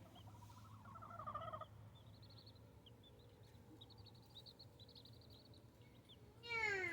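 Baby chicks peeping faintly, a run of short high rising chirps. There is a lower call about a second in and a louder call that falls in pitch near the end, both from the poultry.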